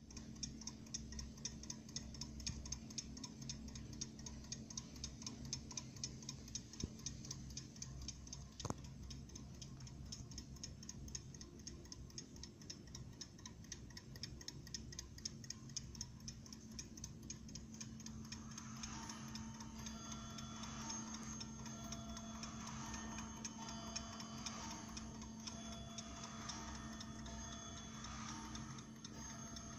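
Antique French Succes wind-up alarm clock ticking steadily, with one sharper click about nine seconds in.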